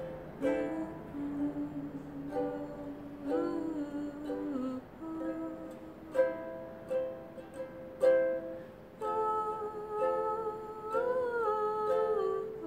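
A small acoustic plucked-string instrument strummed in chords about every one to two seconds, with a voice humming a wordless melody over it: lower in the first few seconds, and higher and bending from about nine seconds in.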